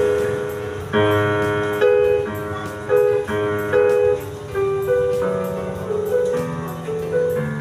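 Yamaha PSR-E363 portable keyboard played with both hands: chords struck about once a second, each ringing and fading before the next.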